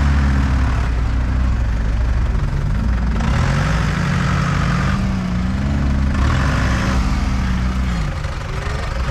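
Off-road jeep engine working under load as the jeep crawls over a dirt mound. The revs rise and fall in a few slow swells, climbing and dropping back near the middle and again towards the end.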